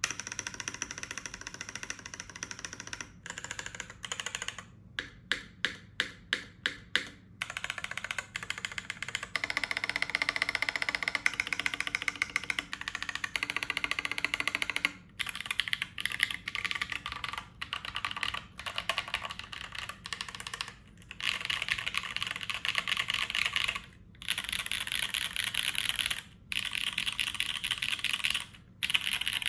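Mechanical keyboard with lubed and filmed Invyr Holy Panda V1 tactile switches on a top-mounted aluminium plate being typed on in fast runs with brief pauses. About five seconds in there is a string of separate single keystrokes, about four a second.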